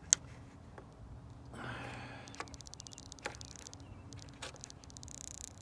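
A plastic or rubber trim piece being worked loose on a minivan's sliding door: a sharp click at the very start, a short scraping rustle about a second and a half in, scattered light clicks, and a brief hiss near the end.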